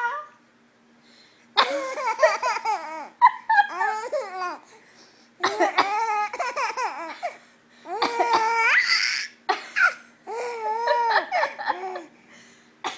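A four-month-old baby laughing: four bouts of high-pitched laughter with short pauses between them.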